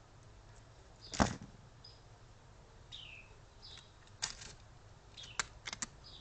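Short high chirps that fall in pitch, typical of a Carolina wren calling, with sharp clicks and taps in between. The loudest is a knock about a second in; a quick run of three clicks comes near the end.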